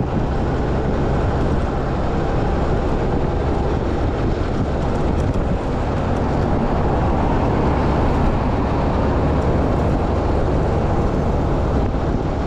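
Motor scooter riding along a road at a steady speed: an even rush of wind and road noise over its engine running at a constant pace.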